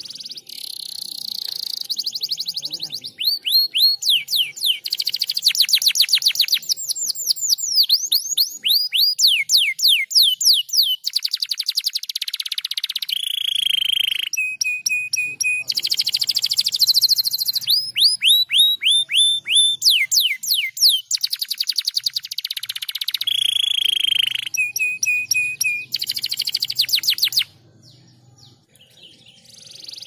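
Domestic canary singing a long song of fast trills, rapid repeated down-sweeping notes and held buzzy tones, breaking off near the end.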